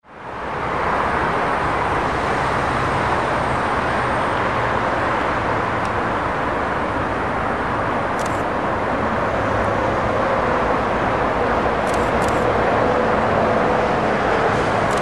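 Container freight train rolling past: a steady rush of wheels on rails, with a few faint high clicks.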